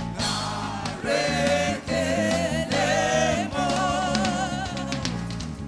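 Gospel praise singing with band accompaniment: voices holding long, wavering notes over steady bass and keyboard.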